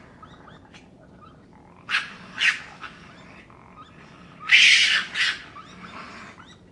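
Raccoon calling: two short harsh calls about two seconds in, then a longer, louder one about four and a half seconds in.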